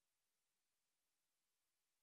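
Near silence: only a very faint, even hiss.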